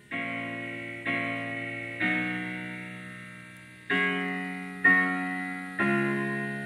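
Piano music played through a Peerless TC9FD18-08 3.5-inch full-range paper-cone driver in a sound test: six chords, each struck and left to fade, about one a second with one longer held chord in the middle.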